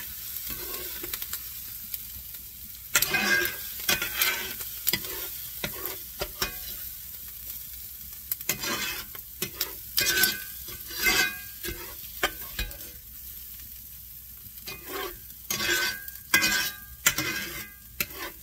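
A spatula scraping and stirring browned vegetables out of a hot skillet into a bowl, in bursts of repeated strokes over a steady sizzle of the fat still frying in the pan.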